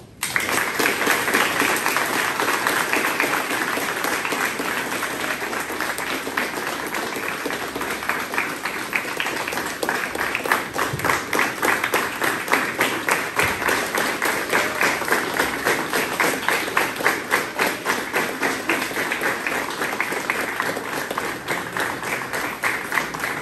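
A room full of people applauding, breaking out suddenly. In the second half the claps fall into a more even rhythm.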